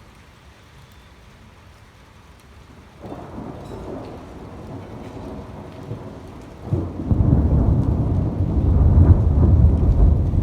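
Thunder over steady rain: a rumble begins about three seconds in, then a sharp crack about seven seconds in opens into a much louder, deep, rolling rumble.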